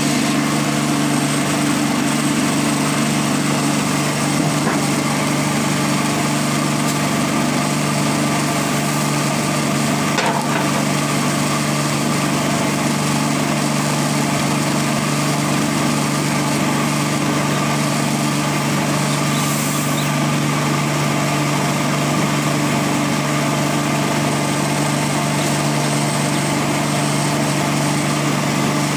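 Electric motor driving an Ostad Gold 4 rice-hulling machine, running with a steady, unchanging hum.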